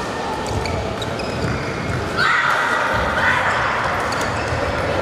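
Badminton rally in a large sports hall: sharp racket hits on the shuttlecock and players' shoes squeaking on the court, over the steady noise of the busy hall. The loudest part is a squeak lasting about a second near the middle.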